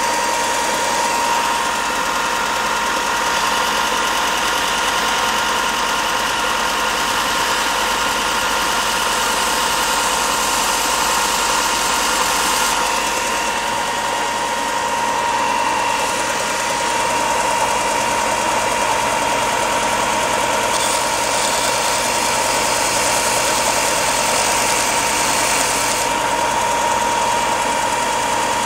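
Bench belt sander with a coarse 60-grit belt running at speed: a steady motor whine over a loud hiss. Twice, for a few seconds each, a harsher, brighter sanding hiss joins as a balsa tail piece is pressed against the moving belt.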